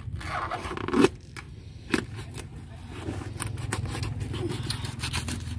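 A knife cutting and scraping through a yellowfin tuna behind the head, with sharp knocks and scrapes about one and two seconds in and a run of quick clicks near the end, over a steady low hum.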